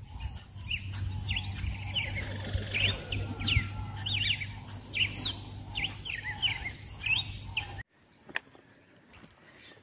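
Birds chirping in many short, quick falling calls over a steady high insect drone and a low hum. About eight seconds in the sound cuts off sharply, leaving only a faint, steady high insect buzz.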